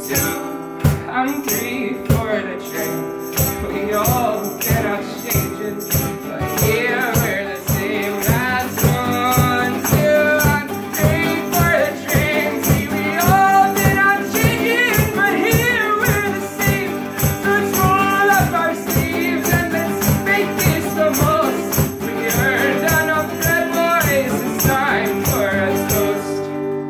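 Steel-string acoustic guitar strummed in a steady rhythm while a man sings along, in a song-ending passage without clear lyrics.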